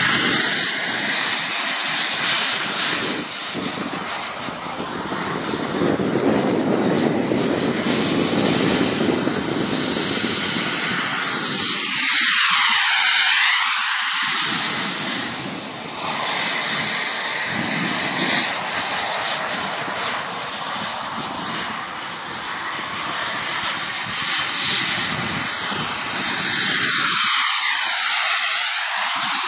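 Fighter jet engines running at high power as the jets make low passes, a continuous loud rushing noise. About twelve seconds in and again near the end, a jet sweeps close by with a phasing whoosh that swirls in pitch.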